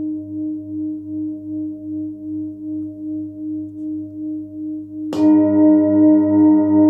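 Large 30.6 cm forged Nepalese singing bowl, tuned to about 99 Hz (G), ringing on with a slow pulsing beat about twice a second. About five seconds in it is struck with a padded mallet: a sharp attack, then a louder, fuller ring.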